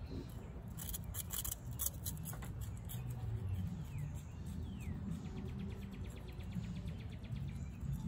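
Virginia opossum chewing food, a quick run of crisp wet clicks about a second in. A bird gives two short falling chirps and then a rapid trill in the background past the middle.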